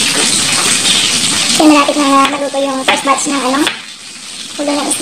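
Fish head stir-frying in oil in a pan, a steady sizzle that is loudest in the first second and a half, with a kitchen knife tapping through ginger on a bamboo cutting board. From about one and a half seconds in, a held melodic tone plays over it for about two seconds.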